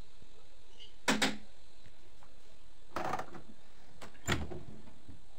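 Three separate clicks and knocks from handling and unlatching the door of an Electrolux front-loading washing machine at the end of its cycle; the last, about four seconds in, is the loudest and heaviest.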